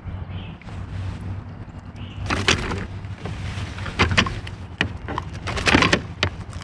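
Several sharp knocks and scuffs on a plastic kayak as a freshly landed bass is handled on board, over a low steady hum.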